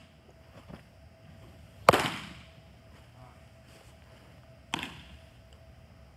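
Two sharp smacks of a baseball into a leather glove, about three seconds apart, echoing through a large indoor training hall; the first is the louder.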